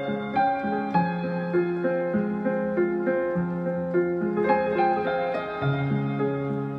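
Solo piano playing a slow, gentle piece: a repeating bass figure under a melody, its notes left ringing.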